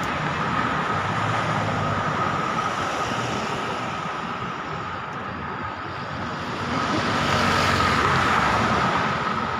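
Steady motor-traffic noise with a faint steady high whine. It grows louder from about seven seconds in and eases off near the end, as a vehicle passes.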